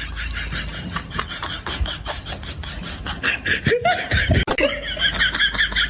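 A person laughing in quick, rapidly repeating pulses.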